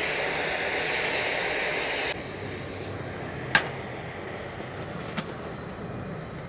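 Portable gas canister camping stove burning with a steady hiss, which drops sharply about two seconds in as the flame is turned down. A sharp metal clank about halfway through as a frying pan is set on the stove, and a light tick a little later.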